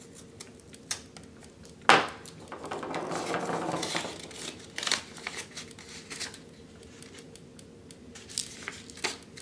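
A folded paper slip being unfolded and crinkling in the hands. A sharp click comes about two seconds in, followed by a second or two of rustling and a few lighter clicks and crinkles.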